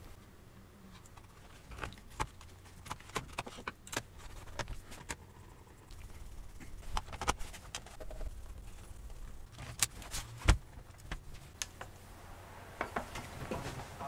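Small scattered clicks and knocks of a screwdriver, screws and plastic as a 2.5-inch laptop hard drive is screwed into its bay and the laptop's bottom cover is fitted and screwed down, with one loud knock about ten and a half seconds in.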